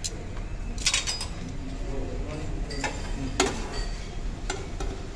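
Dishes and serving utensils clinking at a breakfast buffet: a handful of sharp separate clinks, the loudest about three and a half seconds in.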